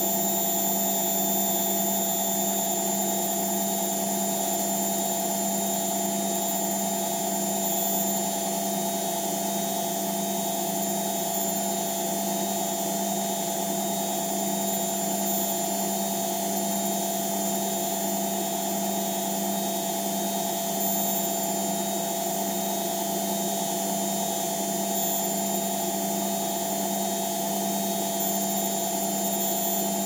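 Pro Action A105QW front-loading washing machine spinning steadily at 800 rpm in its final spin: a constant motor and drum whine that holds one pitch throughout.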